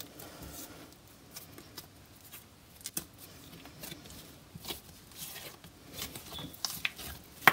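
Hands folding and kneading soft bread dough around butter on a granite countertop: faint, irregular soft pats and taps of dough and fingers against the counter.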